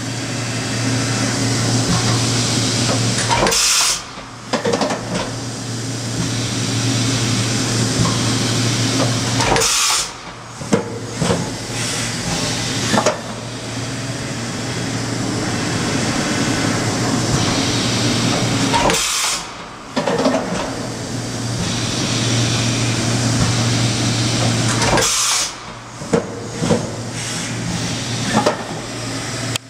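Kitamura MyCenter 1Xi CNC vertical machining center running through its program at 100% rapid traverse: a steady hum and hiss of the moving axes. The sound breaks off briefly four times, with clunks, as the machine stops between moves.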